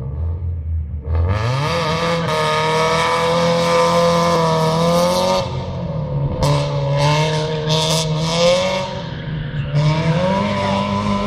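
Rally car engine revving hard, climbing about a second in and held high, dipping in the middle and rising again near the end, with tyres squealing as the car slides through the course.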